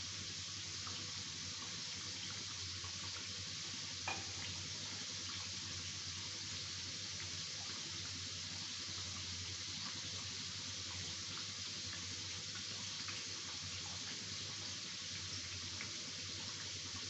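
Sattu-stuffed litti deep-frying in hot oil in a kadhai: a steady sizzling hiss with small crackles. A single sharp click sounds about four seconds in.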